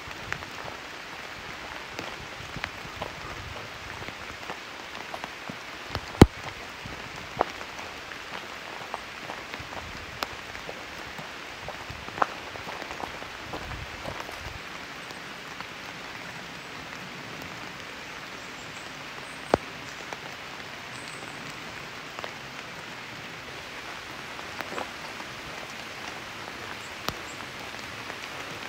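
Steady rain falling in a forest, an even hiss with scattered sharp drips landing close by; the loudest drip comes about six seconds in.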